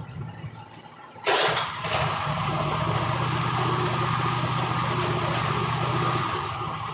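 Cub Cadet zero-turn mower engine started about a second in with a sharp burst, then running steadily at idle before dying down near the end.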